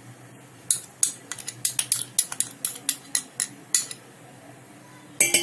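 Spoon clicking and clinking against a bowl in a run of quick, irregular taps, then a short cluster of taps near the end, as a tablespoon of red chili powder is added to the flour.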